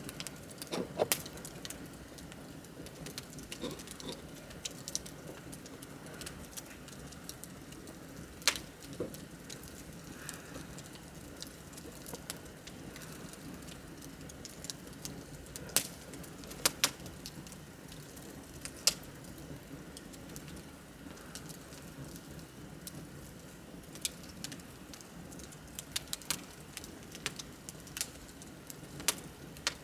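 Wood fire burning, with a steady low hiss and scattered sharp crackles and pops from the burning wood.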